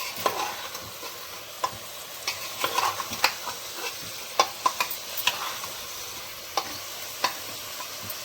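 Black chickpeas and masala frying in oil in a pressure cooker, sizzling steadily while a utensil scrapes and clicks against the metal pot at irregular moments as the mix is stirred and roasted.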